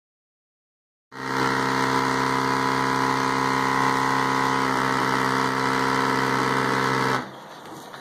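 Steady electric motor hum of milking equipment, even and unchanging for about six seconds, then dropping to a much fainter sound near the end.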